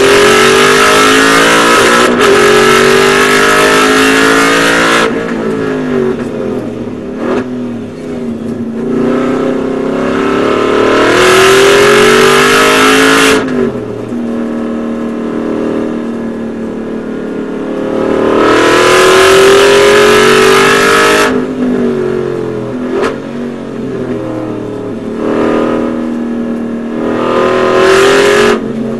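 Aston Martin Vantage GT4's V8 engine heard from inside the race car's cabin, pulling hard with its pitch rising in four loud stretches, dropping back quieter between them as the driver lifts off for corners.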